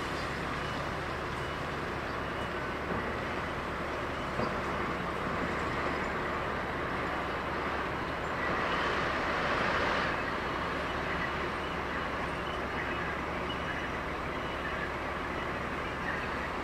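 Steady vehicle running noise: a low rumble under a broad hiss, swelling briefly about eight to ten seconds in.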